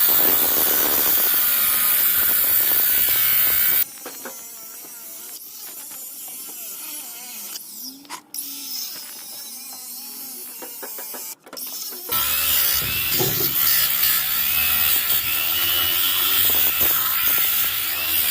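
Power tool cutting into the steel corners of a safe, a loud steady grinding noise. It drops away to a much quieter stretch for about eight seconds in the middle, then comes back just as loud.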